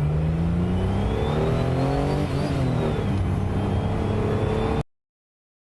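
Holden VY Commodore's supercharged 3.8-litre Ecotec V6 accelerating hard at full throttle, heard from inside the car, its revs climbing with a rising supercharger whine. About two seconds in, the automatic upshifts and the revs and whine drop, then climb again until the sound cuts off suddenly near the end.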